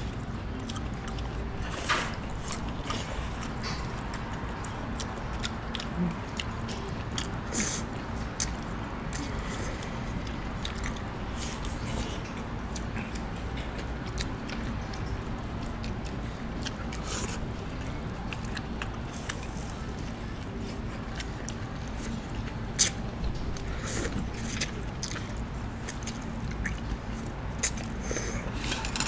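Eating sounds: scattered sharp clicks and crunches of bites and utensils over a steady low hum, the sharpest about three-quarters of the way through.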